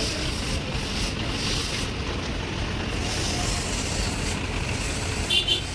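Heavy machinery running with a steady low rumble, and two short high chirps near the end.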